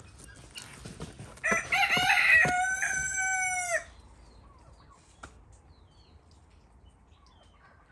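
A rooster crows once, about two seconds long. It starts rough, then holds a long drawn-out final note that drops off at the end.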